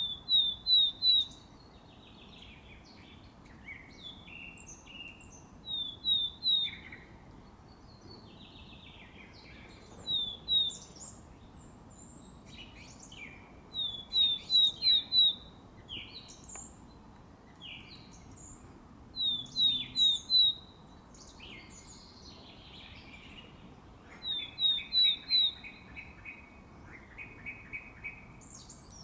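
Willow tit singing its spring song: a series of three or four clear, slightly falling whistles, repeated about every four to five seconds. Between its phrases a song thrush sings fainter, varied phrases, with a quick run of repeated notes near the end.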